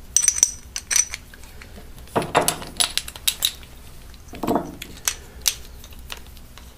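Steel parts of a gear puller and a small drill chuck clinking and rattling as they are handled: a run of light clicks, with a short ringing clink just after the start.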